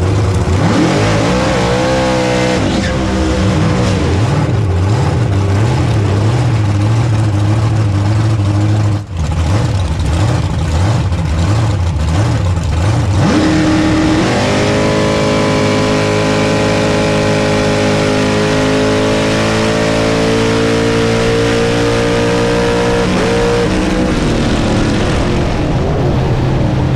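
Supercharged drag-racing Chevy 3100 pickup's engine, revving unevenly for the first half. About halfway in it launches and runs at full throttle for roughly nine seconds, its pitch rising steadily through the pass, then drops back as it lifts off near the end.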